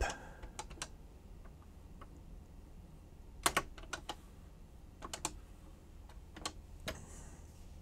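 Keys clicking on a TRS-80 Color Computer 1 keyboard as a command is typed: faint, irregular key presses, the loudest few about three and a half seconds in.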